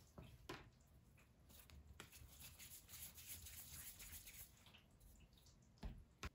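Near silence: faint handling sounds of soft dough being pulled apart and rolled into a ball on a worktop, with two soft taps near the end.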